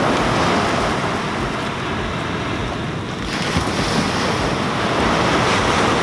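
Ocean surf breaking and washing onto the beach, steady and fairly loud, with wind buffeting the microphone.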